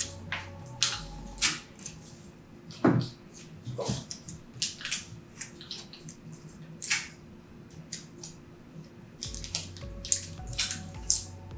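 Scattered short clicks, crackles and rustles of sticky tape being pulled from a desk dispenser, torn off and pressed onto cardboard fins and a plastic bottle.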